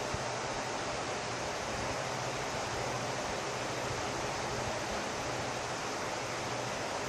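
Steady, even hiss of background noise with a faint low hum, and no distinct sound event.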